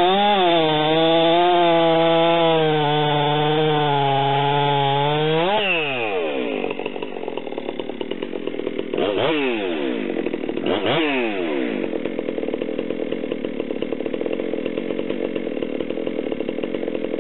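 Ported Stihl MS 462 chainsaw cutting through a log round under load. The engine note sags slightly near the end of the cut. About five and a half seconds in, the saw breaks free, revs and falls back to idle. Two quick throttle blips follow, then it idles.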